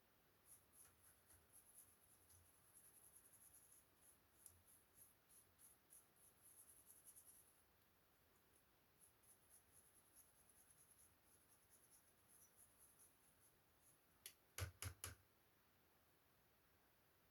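Faint, rapid light scratching and ticking from handwork on the laptop's parts, in two runs, then about four sharp clicks in quick succession near the end.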